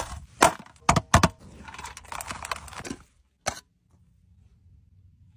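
Several sharp clicks and clinks in quick succession, then crinkly rustling, with one last click a little later: a perforated steel serving tray being handled on a plastic sheet.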